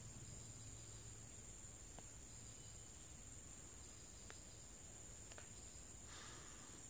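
Faint, steady, high-pitched insect drone, with a few soft ticks and a brief rustle near the end.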